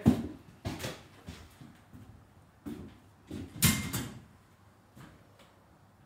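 A handful of knocks and clunks in a small room. The loudest comes about three and a half seconds in as a short scraping clatter, then things fall quiet.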